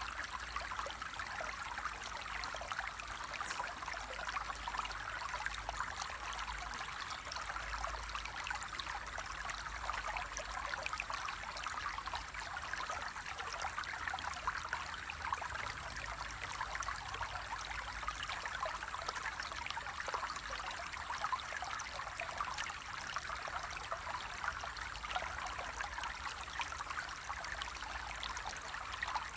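Water flowing and trickling steadily, an even babble peppered with many tiny splashes and droplets.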